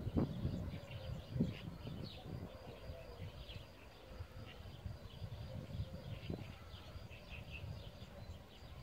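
Small birds chirping and twittering in many short calls, over a low uneven rumble that fades over the first few seconds.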